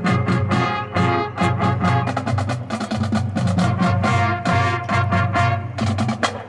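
Marching band playing loudly: brass sustaining chords over a steady stream of sharp drum-line hits.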